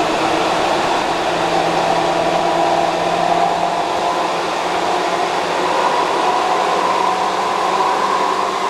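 Tokyu 8500 series train heard from inside the car while running underground under power: a loud, steady roar from its traction motors and cooling fans, with a motor whine that climbs slowly in pitch as the train picks up speed.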